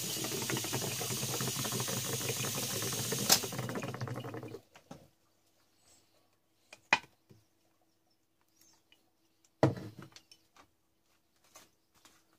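Electrolux HTK12AA hermetic refrigerator compressor running as an air pump, humming under a dense crackling of air bubbling through the water in the jar. It cuts off about four and a half seconds in, just after a sharp click. Scattered knocks and clicks of plastic tubing being handled follow.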